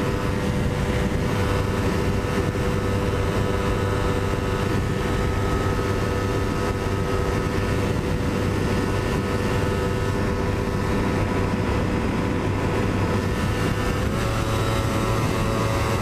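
Kawasaki Ninja 250R's parallel-twin engine held at high revs on a full-throttle top-speed run, a steady engine note over wind noise. The pitch rises slightly about fourteen seconds in.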